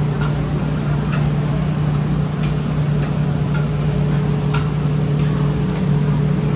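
A steady low machine hum, with a few scattered sharp clicks, roughly one a second.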